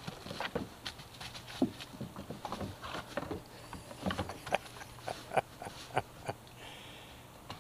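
A Rottweiler puppy nosing and biting at plastic-wrapped bags: irregular crinkling and rustling of the plastic, broken by scattered sharp clicks and taps.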